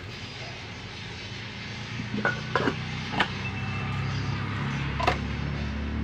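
Several sharp clinks as a metal pot lid is handled against a wok, the last one near the end as the lid is set back down. A low steady hum builds underneath from about two seconds in.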